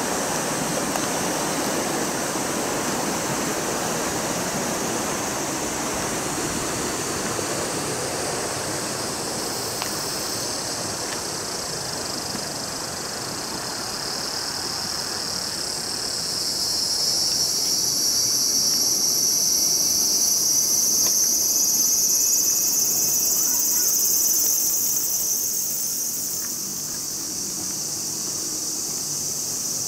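Running river water as a steady rush that fades through the first half, under a shrill chorus of summer insects that swells louder from about halfway and eases off near the end.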